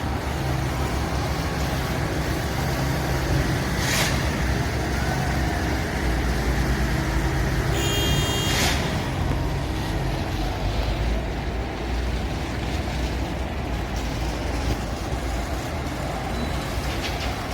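Road traffic: a steady low engine rumble of heavy vehicles, with a short high squeal about eight seconds in.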